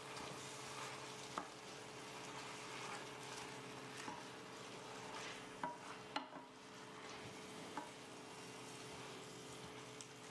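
A wooden spoon stirring spinach and chickpeas through a simmering tomato sauce in a stainless steel pan, over a faint sizzle. A few light taps of the spoon against the pan stand out from the steady hiss.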